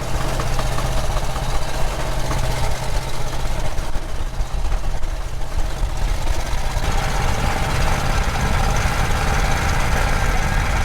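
A 1977 Buick Electra's V8 engine running steadily under way, with road noise. The mid-range noise grows stronger about seven seconds in.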